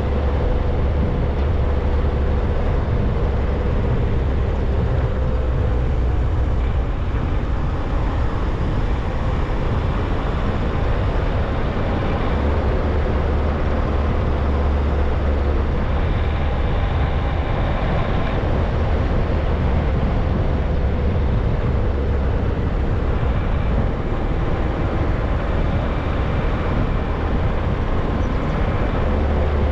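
A car driving along a paved road: a steady engine hum over a low rumble of tyre and road noise.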